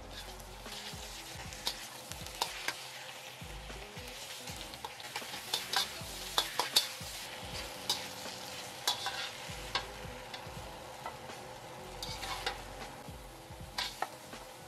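Cubed chicken breast sizzling in oil in a wok as it is stir-fried, with a slotted spatula scraping and clacking against the pan at irregular moments throughout.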